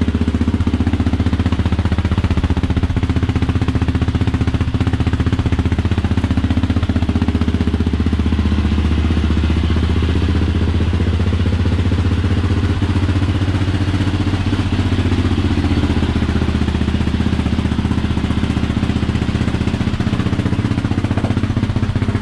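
Yamaha Raptor 700's single-cylinder four-stroke engine idling through a new Yoshimura RS2 exhaust with its removable baffle fitted, the pitch shifting slightly now and then.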